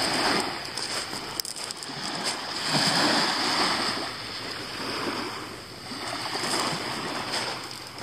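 Small sea waves washing up onto a pebble beach and drawing back, swelling and fading about every three seconds.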